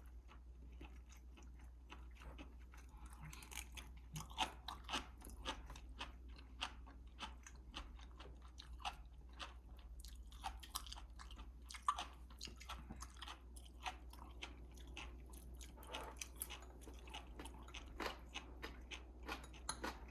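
A person biting and chewing crunchy food, with irregular crisp crunches several times a second.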